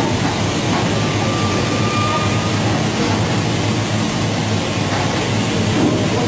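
Potato peeling machine and mesh belt conveyor running steadily: a continuous, even mechanical din.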